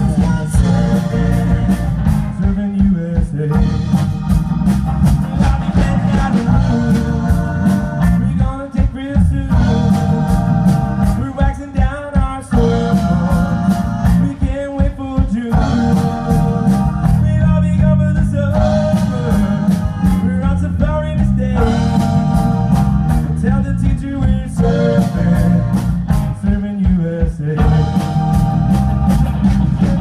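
Live pop-rock band playing with a steady beat: electric guitar, electric bass, drums and keyboard, with men singing.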